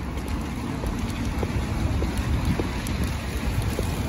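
Street sound in the rain: steady rain with scattered drop ticks, wind rumbling on the microphone, and a car driving past on the wet road.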